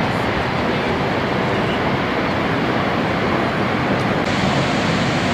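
Niagara Falls: a loud, steady rush of falling water, even and unbroken throughout.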